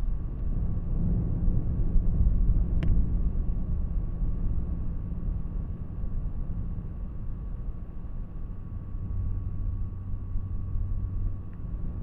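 Computer fan running steadily: an even low whir with a faint constant whine above it. A single short click about three seconds in.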